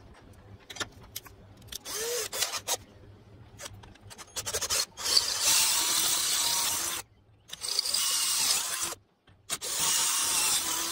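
Power drill boring through the holes of an aluminium brake-disc adapter plate held in a bench vise. There are a few seconds of light handling knocks and clicks, then, from about five seconds in, three steady runs of drilling, each a second or two long, with short stops between them.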